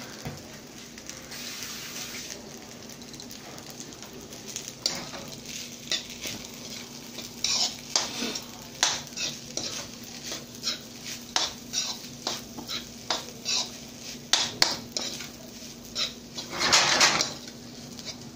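Egg fried rice sizzling in a nonstick frying pan while a spatula stirs and turns it, with many short scrapes and taps against the pan from a few seconds in and one longer scrape near the end. A faint steady hum runs underneath.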